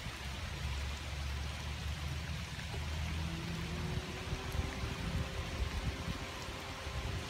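Steady rain falling on trees and leaf-covered ground, an even hiss over a low, uneven rumble. A faint steady hum comes in about three seconds in.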